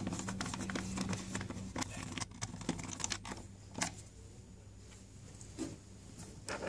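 Small screwdriver tightening the cable-clamp screw on a plastic ceiling sensor, with light clicks and scrapes of plastic and hand-handling noise. The clicks come thick for the first few seconds, then thin out and grow quieter.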